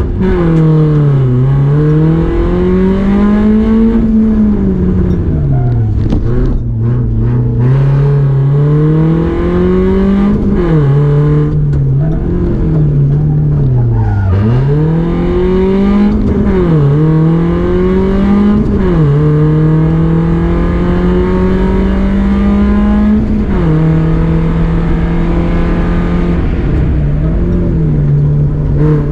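Rally car engine driven hard through a stage, its pitch repeatedly climbing and falling every couple of seconds as it accelerates, shifts and slows for corners. Near the end it holds a steadier pitch for several seconds, with a couple of sudden drops.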